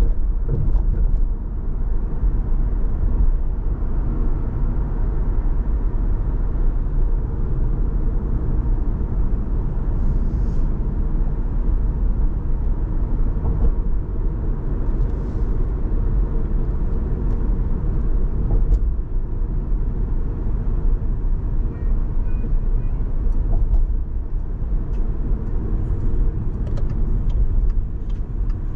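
Steady low rumble of a car driving: tyre, road and engine noise, with a few faint clicks near the end.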